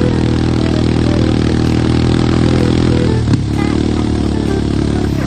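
Motor vehicle engine running steadily while towing a sled through snow; its note drops a little about three seconds in, with a brief knock.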